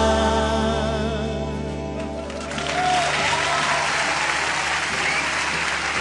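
A song's last held sung notes, wavering, fade out, and about two seconds in an audience breaks into applause and cheering.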